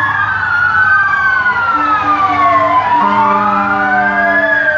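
Several fire truck sirens wailing at once, each slowly rising and falling in pitch out of step with the others. A lower steady horn-like tone sounds twice underneath.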